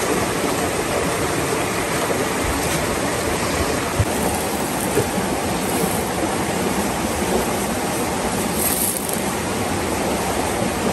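Steady rushing of a river, an even noise that holds without a break.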